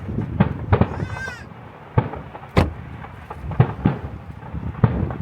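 Fireworks display going off: a string of sharp bangs and cracks, about eight in five seconds. A brief high, wavering cry sounds about a second in.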